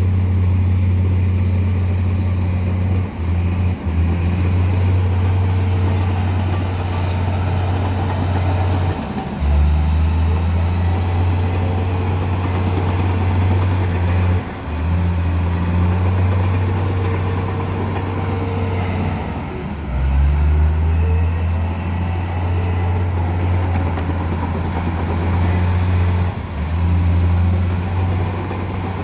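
Heavy diesel engines of construction machinery running hard, a deep steady drone whose pitch and level shift down and back up several times as the machines work.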